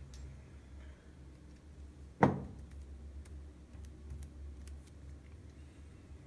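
A single sharp click about two seconds in, followed by a few faint ticks of small objects being handled, over a low steady hum.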